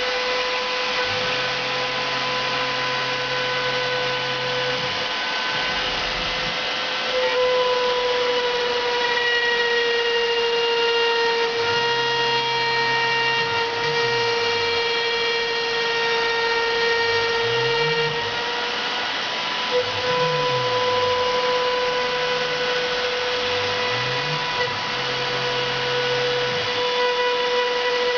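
CNC router running: the spindle whines at a steady high pitch that sags slightly for a stretch in the middle, while the axis motors hum in low tones that rise and fall every few seconds as the machine speeds up and slows between moves.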